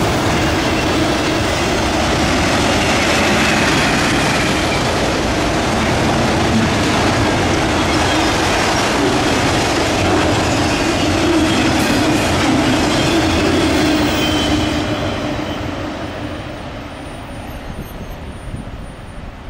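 Autorack freight cars rolling past on the rails: steady wheel-on-rail noise with faint squealing tones from the wheels. About fifteen seconds in, the sound begins to fade as the end of the train moves away.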